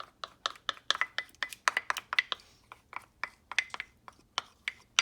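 A spoon clicking and scraping against a bowl while stirring a salad with mayonnaise dressing: quick, irregular taps, several a second.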